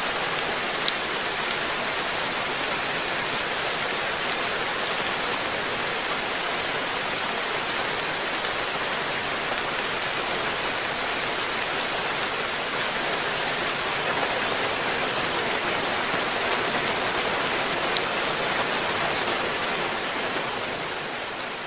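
Steady rain falling on a garden koi pond: an even hiss with a few sharper single drop ticks, fading out near the end.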